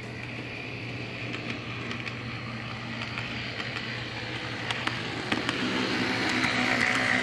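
HO-scale model PCC streetcar running along its track: a steady electric-motor hum with wheel and gear noise and a few light clicks, getting louder in the last couple of seconds as the car draws close and passes.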